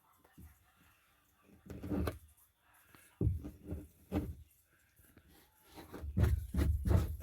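Irregular low thumps and rustles, in short clusters: one about two seconds in, three more soon after, and a dense run near the end.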